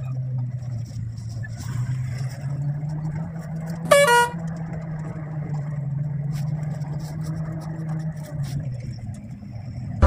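Vehicle engine running steadily, heard from inside the cab while driving, with one short horn blast about four seconds in.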